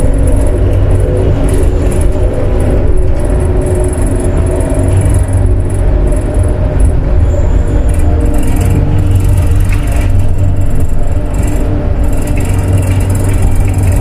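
Metro train running, a steady loud low rumble with a faint hum of tones above it and no clear changes.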